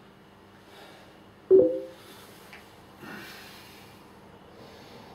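A man breathing during a set of pistol squats: a few soft breaths out, and one short, loud pitched sound from his throat about a second and a half in.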